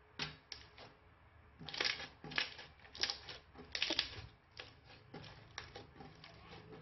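Thick, bubbly purple slime squeezed and kneaded by hand, giving sharp crackling pops and clicks as trapped air bursts. A few pops come first, then they come thick and loud about two to four seconds in, and lighter ones follow.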